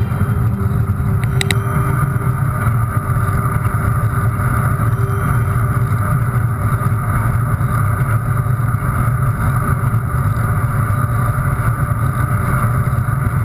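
Steady rush of wind buffeting the microphone of a camera moving fast along a wet road, with a deep rumble beneath it. Two quick ticks come about a second and a half in.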